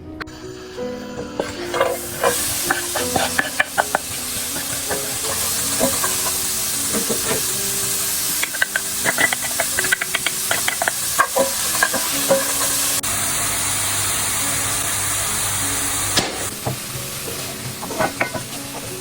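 Food frying in a hot pan, with a steady sizzle and the repeated clicks and scrapes of a utensil stirring it. The sizzle starts about a second and a half in and dies down near the end.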